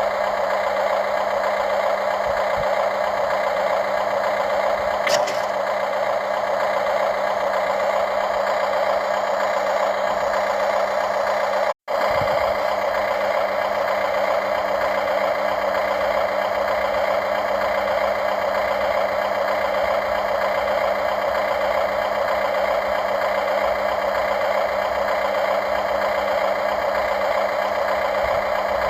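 Radio-controlled construction machines running steadily, a constant whirring motor noise with a short click about five seconds in. The sound cuts out for an instant a little before the middle, then carries on the same.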